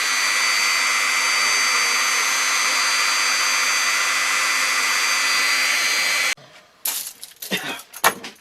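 Electric drill running steadily with a high whine as it bores holes in a moulded HDPE plastic sheath, stopping abruptly about six seconds in. A few short clattering knocks follow.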